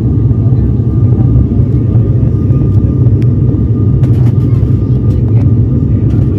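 Cabin noise of an ATR 72-600 turboprop airliner in flight: a loud, steady low drone from its propellers and engines, with a faint steady high tone over it. A few faint clicks come about four to five and a half seconds in.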